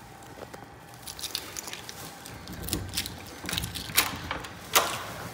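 Dorm room door with a card-reader lever lock being opened: two sharp clicks of the lever handle and latch about four seconds in, with light handling knocks before them.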